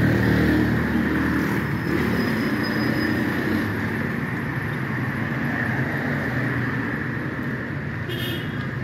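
A motor vehicle running steadily: a low engine hum under a continuous rush of road noise, the hum fading somewhat after the first few seconds.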